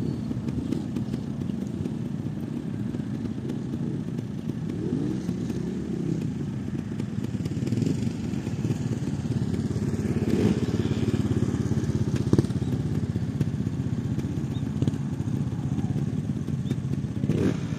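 Several trial motorcycle engines idling together in a steady low rumble, with a few short throttle blips rising and falling in pitch, the busiest a little after the middle.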